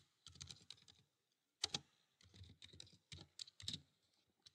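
Faint computer keyboard typing: irregular keystrokes in short runs with brief pauses between them.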